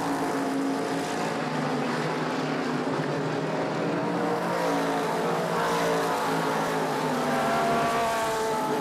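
Several late model stock cars racing at speed, their V8 engines running hard, the engine notes rising and falling as the cars pass.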